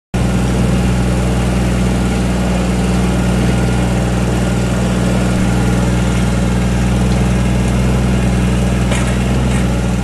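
Compact tractor engine running steadily at idle, heard close up from the operator's seat, with a couple of faint clicks near the end.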